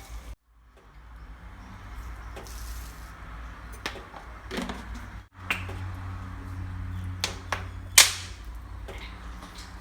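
Scattered knocks and clicks of kitchen work over a steady low hum, with one sharp, louder click about eight seconds in.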